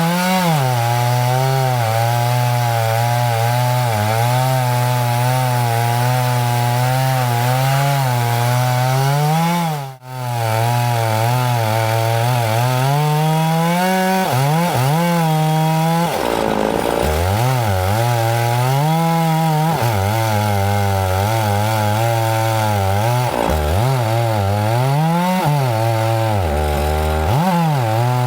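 Chainsaw running under load while ripping a pine log lengthwise for milling, its engine pitch wavering as the cut loads and eases. About two-thirds of the way through, the pitch sags hard and climbs back. The sound drops out briefly about ten seconds in.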